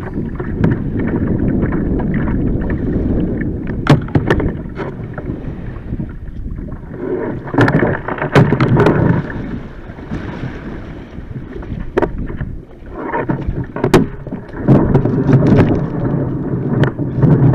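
Water sloshing and lapping around a plastic sit-on-top kayak as it is paddled in and run up onto a pebble beach. Sharp knocks and clunks of the hull and gear come several times, with louder splashing around the middle as the paddler climbs out into the shallows and again near the end.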